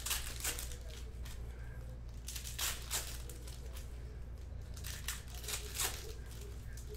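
Foil trading-card packs torn open and crinkled by hand: several short rips and rustles, the loudest at the very start, around two and a half to three seconds in, and near six seconds, over a steady low hum.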